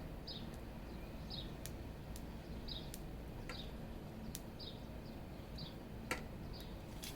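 A small bird chirping repeatedly, a short high call about once a second, over low outdoor background noise. A few faint sharp clicks fall between the calls, the clearest about six seconds in.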